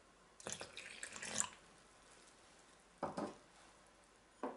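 Lukewarm water poured from a small glass into flour in a stainless steel mixing bowl, a short splashing pour lasting about a second. Two short knocks follow later.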